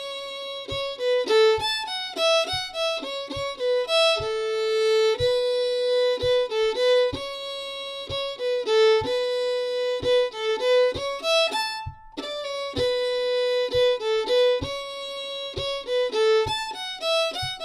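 Solo fiddle playing a lively jig in A major, a quick run of bowed notes with one brief stop about twelve seconds in before the tune picks up again. Soft low thumps keep the beat underneath.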